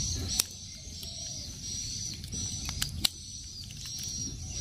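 Scattered sharp clicks and small rattles of AA batteries and the plastic battery box of a toy train being handled as the batteries are fitted, a few of them louder, about half a second in and around three seconds in. A steady high-pitched outdoor chirring runs underneath.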